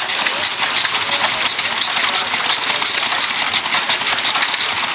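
Antique hit-and-miss stationary gas engine running, its valve gear and linkages clattering with rapid, even ticking.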